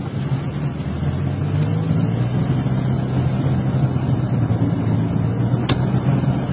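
Car running along a wet road, heard from inside the cabin: a steady low engine hum and tyre noise. A single sharp click comes near the end.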